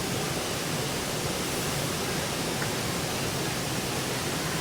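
Steady, even rushing of falling water from a waterfall, with no breaks or changes.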